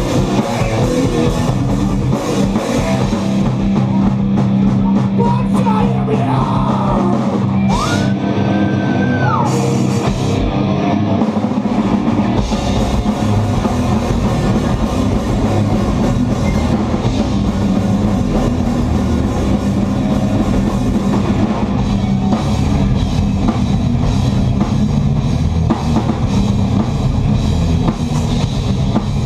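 Live heavy rock band playing loud: distorted electric guitars over a drum kit. About eight seconds in, a single high note slides up, holds and slides back down, and from about twelve seconds in the drums and low end come in heavier.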